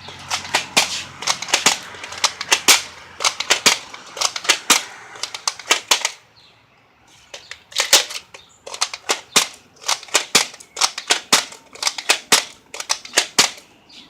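Nerf Zombie Strike Flip Fury foam-dart blaster being primed and fired over and over, a rapid run of sharp plastic clacks and snaps. The firing stops for about a second and a half some six seconds in, then starts again.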